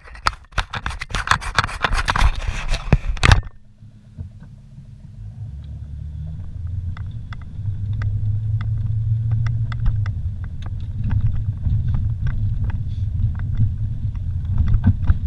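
Vehicle driving slowly on a rough dirt road. For about the first three seconds a loud crackling, scraping clatter cuts off suddenly. Then the engine and tyres rumble low and grow louder, with scattered small clicks and rattles.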